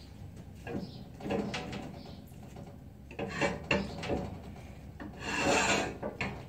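Wooden spoon stirring and scraping against the inside of a stainless steel pot: a series of rasping strokes, with the longest and loudest scrape near the end.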